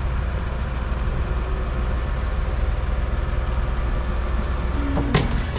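Diesel engine of a wheel loader with pallet forks running steadily as the machine moves up close. About five seconds in there is a single sharp clank.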